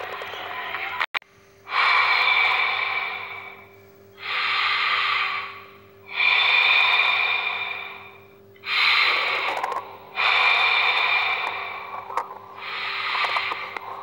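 A man breathing heavily and rhythmically: drawn-out, noisy breaths of one to two seconds each, about one every two seconds, after a brief drop-out about a second in.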